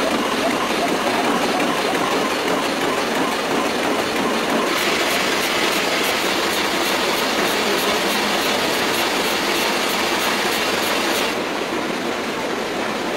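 Banknote sheet-processing machinery running with a steady mechanical noise. For several seconds in the middle a fast, regular clicking joins it, about three clicks a second, then stops.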